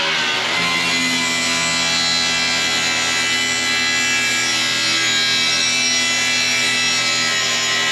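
Makita track saw running on its guide rail, cutting a sheet of plywood. The cut settles in about half a second in and carries on steadily.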